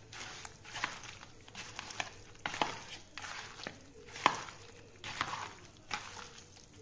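A hand squishing and kneading raw chicken pieces in a wet curd-and-spice marinade in a plastic bowl: irregular wet squelches and soft knocks, with a sharper knock about four seconds in.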